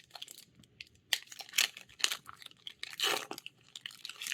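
Foil wrapper of a Magic: The Gathering booster pack being torn open and crinkled by hand: irregular crackling and rustling, with a louder flurry about a second in and another about three seconds in.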